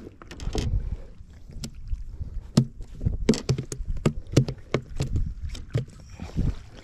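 A freshly landed rabbitfish flopping on a skiff's deck: a string of irregular sharp slaps and knocks against the hull.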